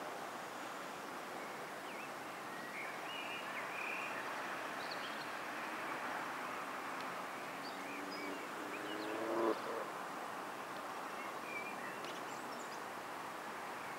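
Steady outdoor background noise with small birds chirping now and then. A short rising pitched call or voice about nine seconds in is the loudest sound.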